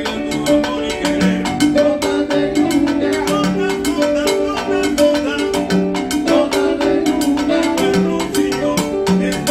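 Live Latin band playing salsa-style music: piano notes over an even, quick rhythm of hand-drum and percussion strikes.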